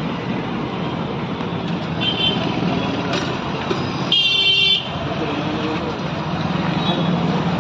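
Steady roadside traffic noise, with a vehicle horn honking once, loudly, for about half a second a little past four seconds in, and fainter horn beeps around two seconds in.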